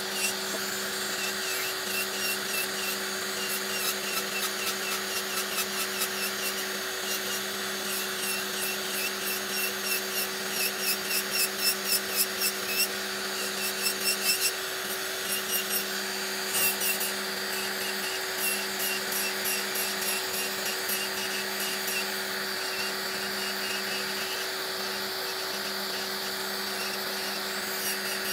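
Handheld electric nail drill running at a steady speed with a constant hum, its bit grinding old gel off a fingernail in short repeated passes for a fill-in removal. The grinding gets louder and more rapid toward the middle.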